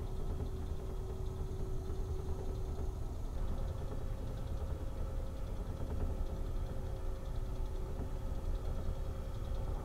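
Steady low hum and rumble of a ferry's engines carried through the ship into the cabin, with a faint steady tone above it that shifts a little higher about three seconds in.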